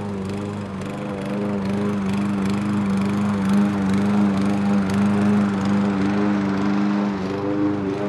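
Small gasoline lawnmower engine running steadily under the mowing deck, a steady drone that grows a little louder about a second and a half in.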